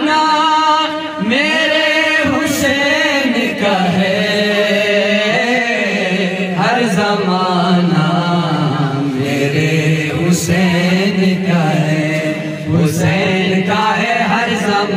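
Men's voices singing an Urdu Sufi devotional kalam into microphones, with long drawn-out notes that waver in pitch.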